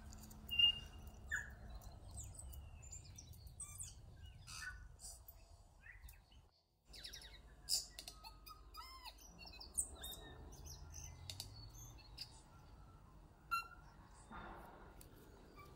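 Several birds chirping and calling: short, varied chirps, whistles and sharp clicks, some notes rising and falling, over a low steady background noise. The sound drops out briefly about six and a half seconds in.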